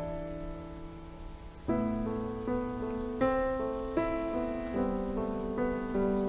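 Background piano music: soft sustained chords, each struck and slowly fading, changing about every second.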